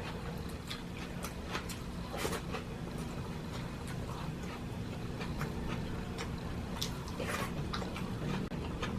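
Close-up eating sounds: chewing and mouth smacks, with scattered soft clicks throughout, over a faint steady hum.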